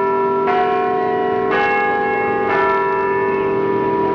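Bells ringing: three strikes about a second apart, each ringing on over the tones of the last.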